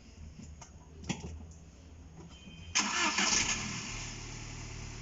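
A car engine is cranked and catches about three seconds in, after a few small clicks, then settles into a steady idle. Its drive belt has just been dusted with cornstarch to stop it squealing when wet.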